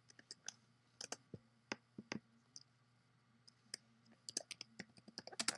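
Faint clicks of a computer mouse and keyboard: scattered single clicks, then a quicker run of clicks near the end.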